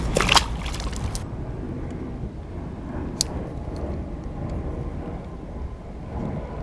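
Steady low wind rumble on an action camera's microphone. At the start comes a splash as a small largemouth bass is dropped back into the water, and about three seconds in there is a single sharp click.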